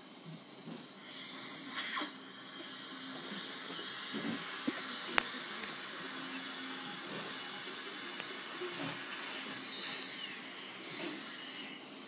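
High-speed dental drill running with a thin high whine and hiss, building up about three seconds in and stopping near the end. A short knock comes just before it starts.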